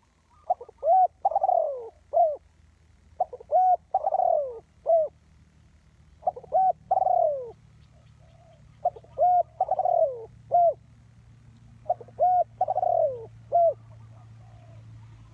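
Spotted dove cooing: five phrases in a steady repeated rhythm, about one every three seconds. Each phrase has two short notes, a longer falling coo and a short closing note.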